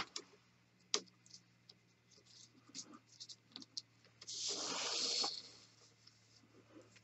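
Hands working a rope: small clicks and light rustles, then about a second of rasping rustle as a doubled cord is drawn through the lay of a thick natural-fibre rope for worming.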